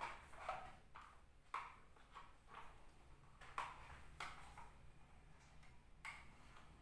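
Faint, irregular clicks and taps of hard plastic as a Krisbow canister vacuum cleaner's wand and nozzle attachment are handled and pushed together, about ten light knocks over several seconds. The vacuum's motor is off.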